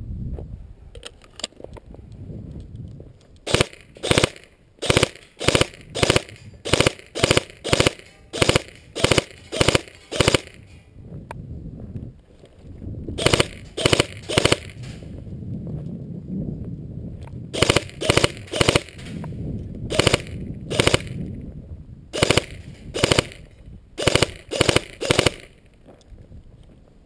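Airsoft guns firing single shots in steady strings of sharp cracks, about two a second, with short pauses between strings.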